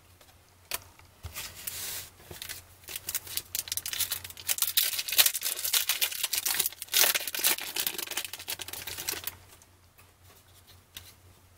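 A foil trading-card pack being torn open and crinkled by hand: a run of crackly rustling and ripping, loudest in the middle and dying down near the end.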